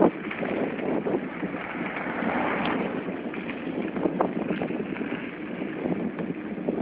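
Wind buffeting the phone's microphone: a steady, uneven rushing noise with a few faint ticks.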